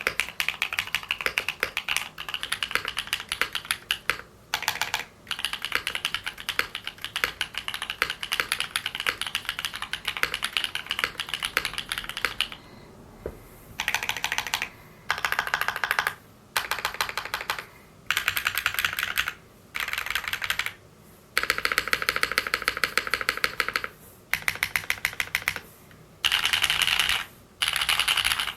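Typing on a Freebird TKL mechanical keyboard with lubed Holy Panda tactile switches on an aluminium plate. It is steady continuous typing on NicePBT keycaps for about twelve seconds. After a brief pause come repeated bursts of fast keystrokes on GMK keycaps, each a second or two long with short gaps between.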